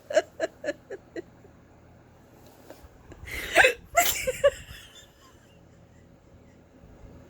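A short run of giggles that quickly fades. Then, about three and a half seconds in, loud sudden hiccups from someone with a persistent bout of them, followed by a couple of short laughs.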